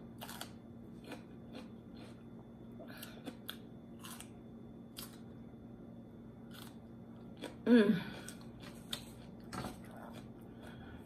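Crisp crunching and chewing of raw sweet pepper close to the microphone, a run of sharp crackling bites, with one brief vocal sound about eight seconds in.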